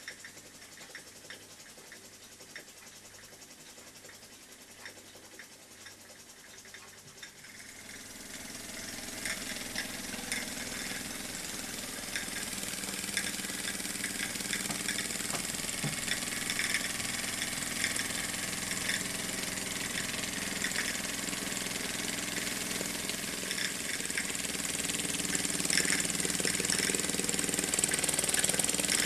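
Small live-steam toy engine with a copper vertical boiler, faint at first and then, about eight seconds in, getting going: a rapid run of small clicks over a steam hiss that grows steadily louder.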